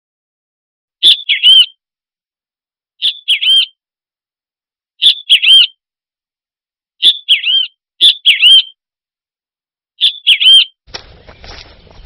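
A bird's chirping call: a short, high phrase of a few swooping notes, repeated six times about every two seconds. Near the end a low crackling rustle begins.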